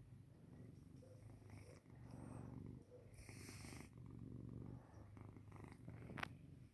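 Domestic cat purring softly close up, a low rumble that swells and eases with each breath in and out. A brief click sounds near the end.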